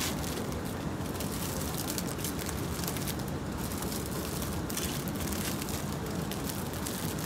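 Clear plastic packaging crinkling and crackling irregularly as packaged garments are handled on a hook rack, over a steady low hum of store background noise.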